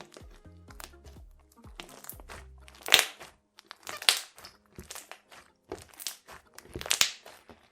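Crunchy slime being squeezed and pressed by hand, giving a series of loud crackling crunches, about five, the loudest about three seconds in. Background music plays at first and stops after about two and a half seconds.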